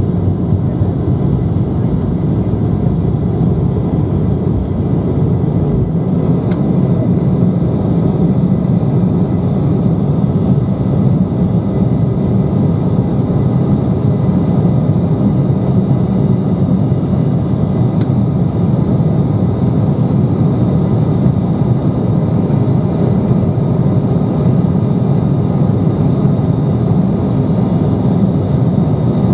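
Cabin noise of an Embraer E170 at takeoff thrust through the takeoff roll and climb-out: a steady, loud rush from its turbofan engines with a faint whine above it. The deepest rumble thins out about six seconds in.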